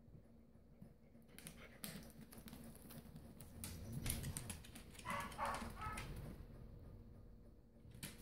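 Faint scattered ticking of small dogs' claws on a hardwood floor as they move about.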